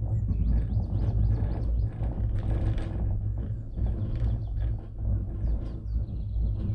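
Cable car running, a steady low rumble with faint high chirps above it.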